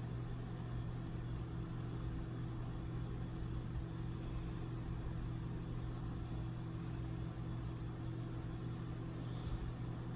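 A steady low hum under faint room noise, with one faint click near the end.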